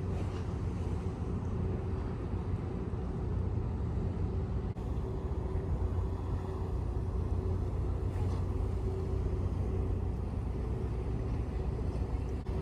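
Steady low engine rumble with a faint constant hum above it.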